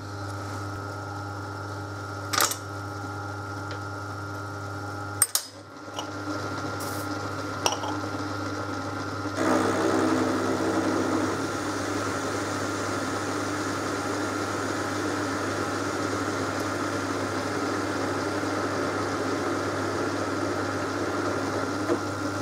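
Metal lathe running with a steady hum, with a few sharp clicks in the first several seconds. From about nine seconds in, the tool takes a light facing cut on a small stainless steel hex nut, adding a rough cutting noise over the hum.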